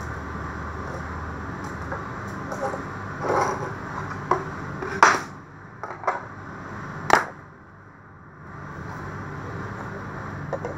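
Several short, sharp knocks and clanks of tools and metal parts being handled on a workbench, the loudest two about five and seven seconds in, over a steady background hum.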